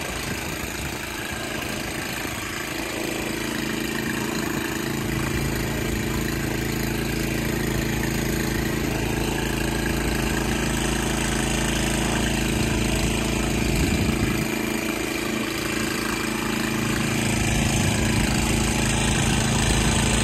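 Small gasoline engine of a wheel-line irrigation mover running steadily as it rolls the pipe line, growing slightly louder toward the end.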